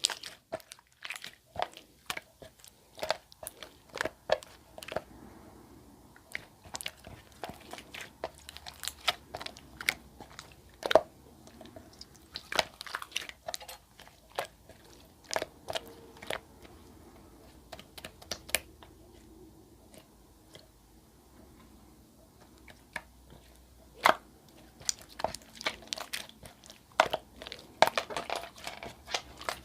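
Clear slime being worked by hand, making many irregular wet clicks and pops, with a quieter stretch about two-thirds of the way through.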